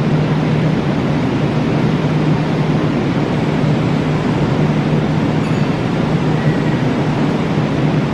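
Kintetsu 2610-series electric train standing at the platform, its onboard equipment running with a steady hum and a low drone.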